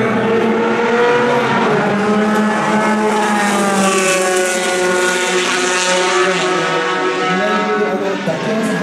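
Single-seater formula racing car's engine running hard on the straight, its pitch climbing and dropping as the revs change.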